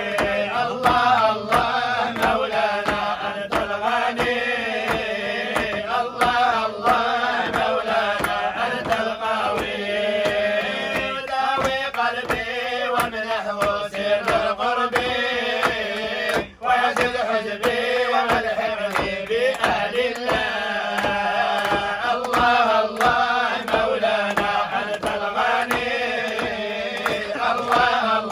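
A group of men chanting an Arabic Islamic dhikr together in unison, a continuous melodic devotional chant. The voices break off briefly about sixteen seconds in, then carry on.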